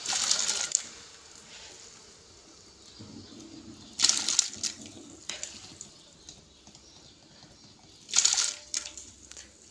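Sabudana (sago pearls) being tipped into a steel pot of hot water in three short pours, each a brief watery splash, about four seconds apart.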